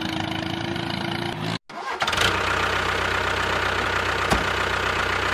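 A motor running steadily with a constant whine, cut off about one and a half seconds in, then a different motor running with a low hum, with a single sharp click a little before the end.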